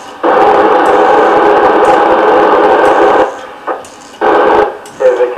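FM radio static hissing from a Yaesu FT-991A transceiver's speaker on the ISS voice-repeater frequency for about three seconds, then cutting off suddenly, with a second short burst of hiss about four seconds in.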